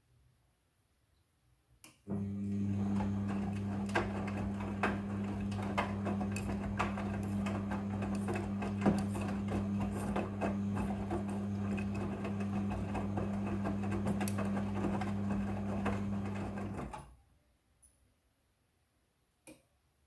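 Midea front-loading washing machine's drum motor turning the drum in one long wash tumble, a steady low hum with scattered clicks and knocks from the tumbling laundry. It starts about two seconds in and stops abruptly about three seconds before the end.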